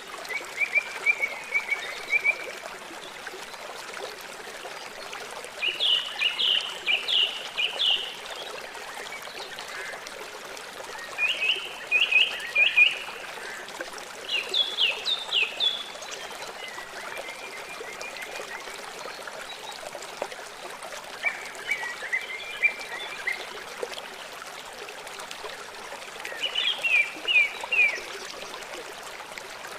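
A songbird singing short phrases of rapid, quick-falling notes, repeated every few seconds, over the steady rush of a small stream.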